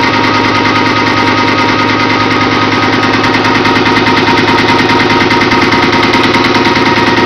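Desktop PC running with its components out of the case: a loud, steady mechanical hum with several held tones and a fast flutter.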